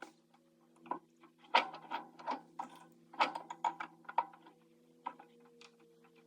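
Irregular sharp clicks and metal knocks of hand tools working on a diesel engine's injector, loudest about one and a half and three seconds in, over a steady low hum.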